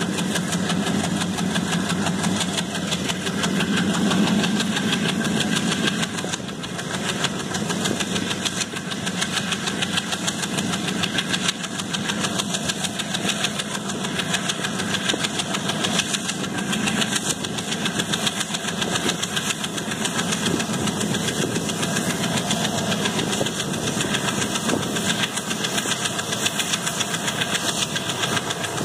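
Indian Railways passenger coach running at speed, heard from its open doorway: a steady rumble and fast clatter of the wheels and bogies on the track, with wind rushing past.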